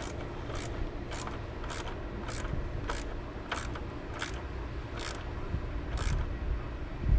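Hand socket ratchet clicking in short single clicks, about one every half second, as nuts on a new car battery's hardware are tightened down. A dull knock comes at the very end.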